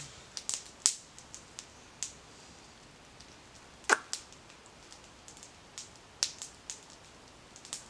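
Campfire wood crackling and popping: irregular sharp snaps, the loudest about a second in and about four seconds in.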